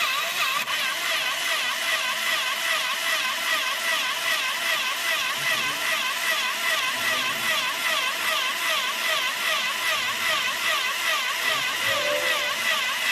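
Small electric drill motor of a PLC-controlled model drilling machine running while it drills a hole in the workpiece: a steady high whine that wavers up and down in pitch a few times a second.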